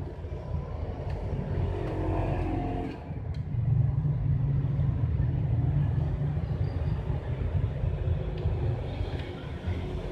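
Steady low background rumble that grows louder about three and a half seconds in, with a single light click just before.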